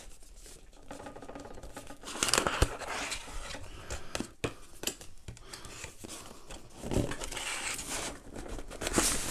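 Cardboard box sleeve being slid off a graphics-card box, with card scraping and rustling against card. A couple of sharp knocks from the box being handled stand out.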